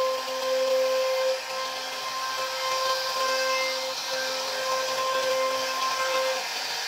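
CNC router spindle running with a steady high whine while its bit cuts grooves into a wooden door panel, over a hiss of the cutting.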